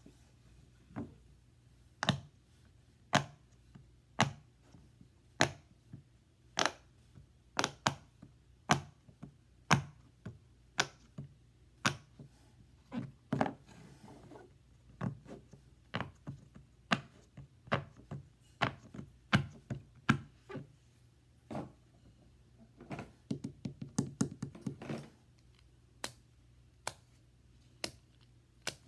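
Silicone Pop It fidget toy bubbles being pressed in turn, each giving a sharp pop, mostly about one a second, with a fast run of pops in the last third.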